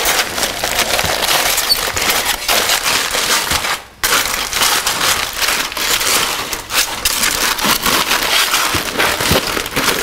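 Aluminum foil crinkling and crackling as gloved hands pull it open and peel it back from a smoked pork butt, with a brief break about four seconds in.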